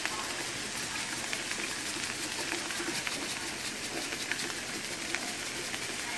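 Diced potatoes and onions frying in oil in a skillet: a steady sizzle with small crackles.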